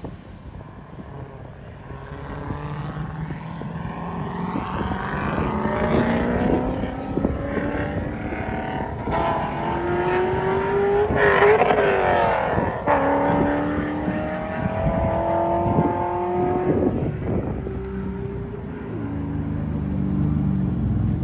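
Cammed 2003 Chevrolet Corvette C5 Z06 V8, with long-tube headers, X-pipe and no catalytic converters or mufflers, accelerating hard. The sound grows louder over the first several seconds as the car nears. The pitch climbs through each gear, with several upshifts in the second half, each a sudden drop in pitch.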